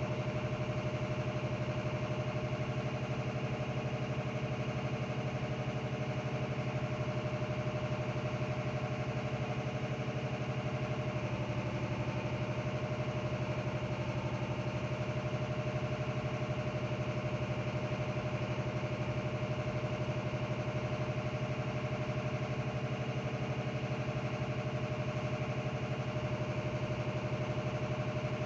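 A motor running steadily: a constant low hum with a steady higher tone above it, unchanging in level.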